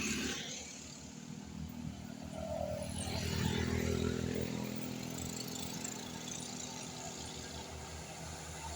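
A large bus's diesel engine running as it passes close by, growing louder over the first few seconds and then easing off.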